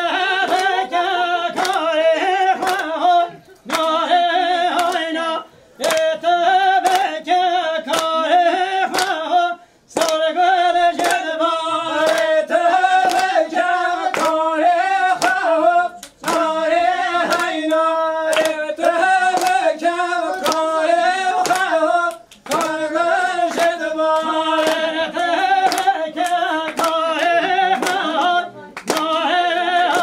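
Voices singing a Kurdish folk song together without instruments, in phrases of a few seconds with short breaks between them, over steady rhythmic hand clapping.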